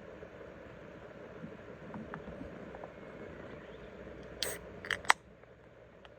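Steady low background noise, then three sharp mechanical clicks in quick succession, the last the loudest, after which the background becomes quieter.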